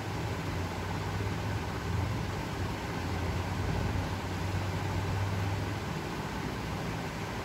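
Steady low hum with an even hiss of background noise, a little stronger in the middle.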